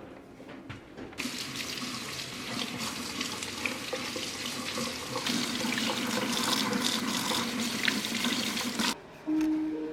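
Water running from a tap into a sink: turned on about a second in, running steadily, and shut off near the end.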